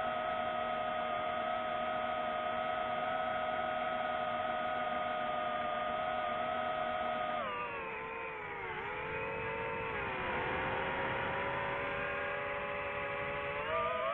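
DJI FPV drone's motors and propellers whining at a steady pitch, then about halfway through the pitch drops and wavers up and down as the throttle changes.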